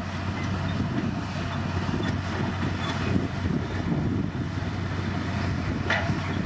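Komatsu D60P bulldozer's diesel engine running steadily with a low rumble, with a short clank near the end.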